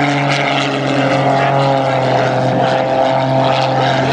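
Propeller aircraft engine running loud and steady during a display flight, its tone drifting slowly lower in pitch.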